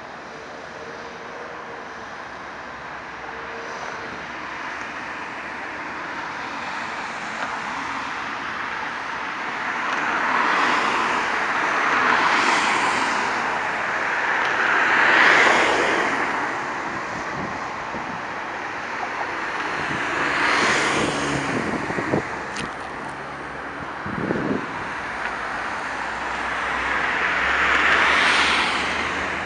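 Road traffic passing close by on an overpass, about four vehicles swelling past one after another, over the growing rumble of an approaching diesel-hauled commuter train.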